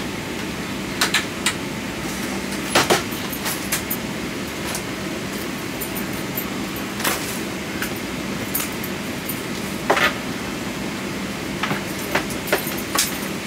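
Steady hum of a parked airliner's cabin air system, with a low constant tone underneath, broken by scattered sharp knocks and clacks as luggage is handled and stowed.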